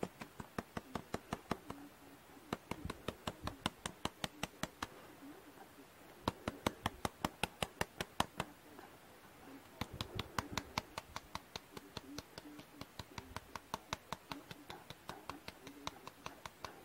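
Handheld electrostatic flock applicator clicking rapidly as it dispenses rayon flock fibres, about six clicks a second. The clicks come in runs of a few seconds with short breaks between.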